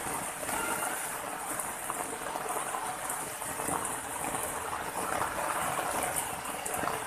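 Steady rushing and splashing of water running over rocks into a pool.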